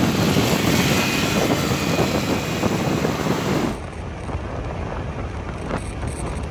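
Motorcycle riding at highway speed: wind noise on the microphone over the drone of the engine and road. About four seconds in the sound cuts to a quieter ride noise from over the scooter's handlebars.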